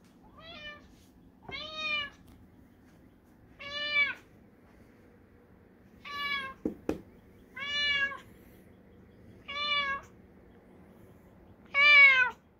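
Domestic tortoiseshell cat meowing repeatedly, about six meows spaced roughly two seconds apart, the first faint and the last the loudest. A short knock comes about seven seconds in.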